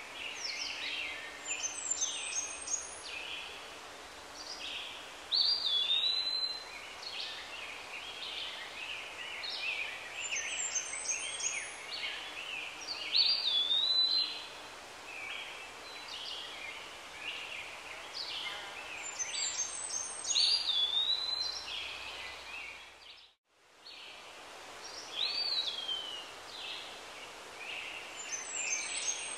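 A songbird singing a short phrase over and over every few seconds: a looping whistle with quick high chatters, over a steady outdoor hiss. The sound dips out briefly about 23 seconds in.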